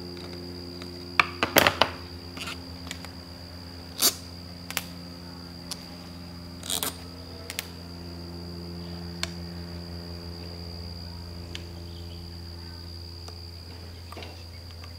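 Hands handling the carburetor and primer bulb parts of an Echo PAS 260 power head: a quick run of sharp clicks and taps about a second in, then a few scattered single clicks. Under them runs a steady low hum with a thin, high, steady whine.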